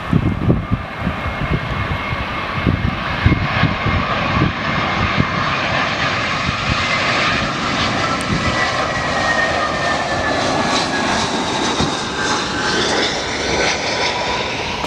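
Airliner's turbine engines running as it passes by, a steady loud rush with a whine that slowly falls in pitch through the second half. Wind buffets the microphone in the first few seconds.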